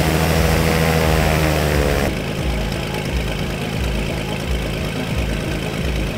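Turbocharged Cirrus single-engine plane's piston engine idling on the ground, propeller turning. Its pitch wavers for the first two seconds, then it steadies into a more even drone.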